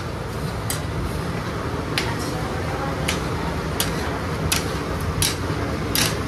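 Metal spatula striking a large iron tawa in seven sharp clicks, roughly one a second, over a steady background noise.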